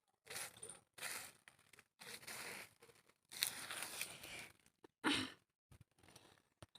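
Several faint, irregular scraping and tearing strokes, with a sharper burst about five seconds in.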